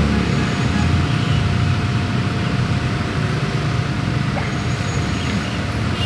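Busy street traffic: cars passing close with engines running and tyres on the road, a steady low rumble with a faint thin steady tone above it.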